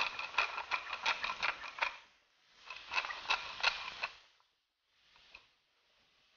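Tall wooden pepper mill twisted to grind pepper: a quick run of crunching clicks from the grinder, in two bursts of about two seconds and a second and a half with a short pause between.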